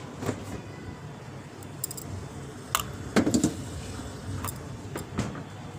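A few knocks and metallic clinks as a steel bowl with a steel lid is handled and set on a refrigerator shelf. The loudest knock comes a little past halfway.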